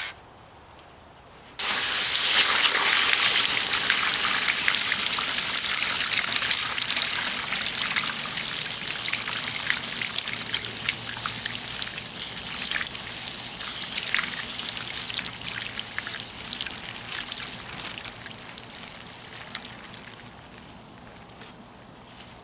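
Water quenching heat-soaked engine metal: a loud sizzling hiss with crackling starts suddenly a couple of seconds in and slowly dies away as the metal cools. The part is heated and quenched to break rust loose where it is seized on.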